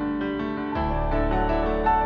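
Background music: a gentle piano piece, with a low bass note coming in under it a little under a second in.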